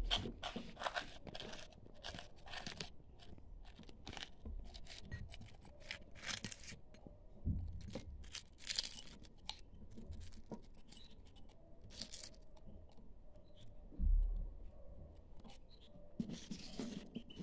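Hands crumbling hard-boiled egg and eggshell into a ceramic dish: scattered small crackles and crunches of breaking shell, with a couple of dull knocks partway through.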